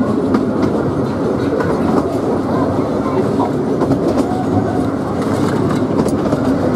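Narrow-gauge train running along the track, heard from aboard an open carriage: a steady rumble and rattle of wheels on rails, with occasional clicks over rail joints.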